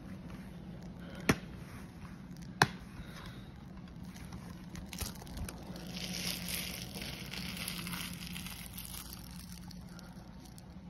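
Plastic DVD case handled: two sharp snapping clicks about a second apart, then a few seconds of crinkling and rustling of plastic on a bedsheet. A faint steady hum runs underneath.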